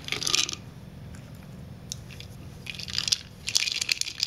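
Dry kibble rattling inside a hard plastic IQ Ball treat-dispensing ball as a dog pushes it along with its nose, in three bursts of clicking.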